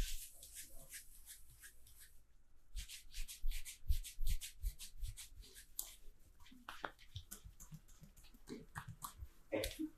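Massage by hand: palms rubbing quickly over skin, in runs of short brushing strokes with a few soft thumps.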